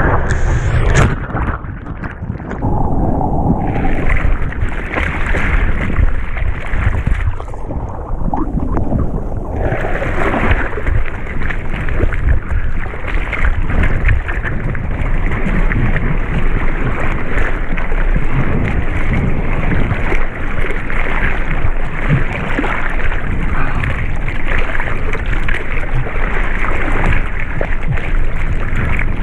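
Seawater rushing and splashing around a surfboard close to a board-mounted action camera, as the surfer comes through broken whitewater and paddles by hand; the sound dulls briefly twice in the first ten seconds.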